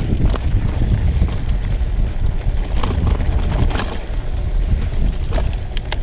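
Mountain bike (a Trek X-Caliber 9 29er) rolling over a rough dirt and rock trail: a steady heavy rumble of tyres and frame vibration mixed with wind on the microphone. Sharp clicks and rattles come as the bike hits bumps, a few times in the second half.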